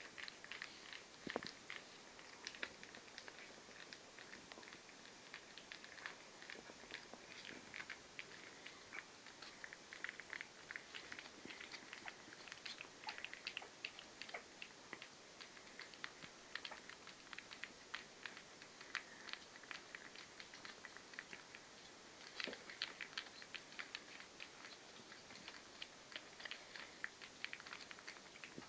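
Faint, steady run of small wet licking and smacking clicks from three-week-old Lhasa Apso puppies licking food mix off themselves and each other, with little paws pattering on a rug and newspaper.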